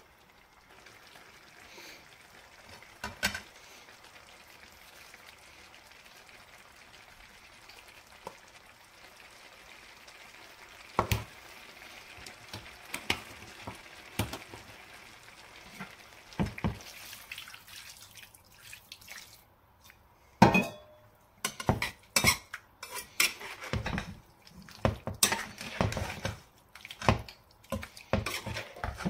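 Chicken pieces with onion and spices sizzling faintly in a frying pan, with a few single knocks of a metal spoon on the pan. In the last several seconds the metal spoon clatters and scrapes against the pan as the chicken is stirred.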